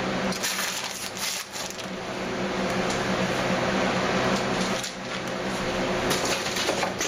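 Plastic packaging crinkling and rustling as it is handled, with a faint steady low hum underneath.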